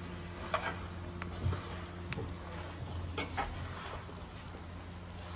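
Metal spatula scraping and clinking against a wok as chicken wings are stirred, several short scrapes and knocks over a steady low hum.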